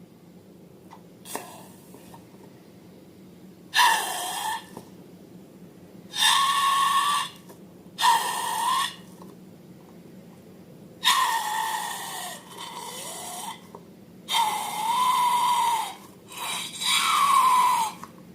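Balloon necks squealing and sputtering as their contents are squeezed out, in about seven separate bursts with a wavering pitch.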